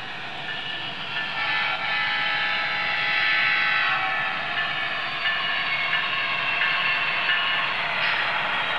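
Model train's onboard sound system sounding a horn: a held chord of tones that breaks into shorter notes in the second half.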